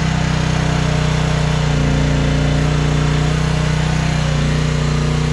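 Chinese mini excavator's engine running steadily during a test dig, with its note shifting slightly a couple of times as the machine works.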